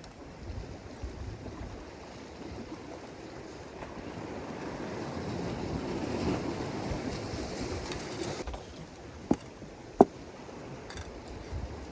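Sea waves washing on the shore, one swell building and fading away in the middle. Near the end come two sharp clicks, under a second apart.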